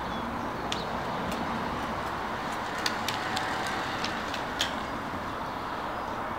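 Steady outdoor background rush with a handful of short, sharp clicks scattered through the first two-thirds.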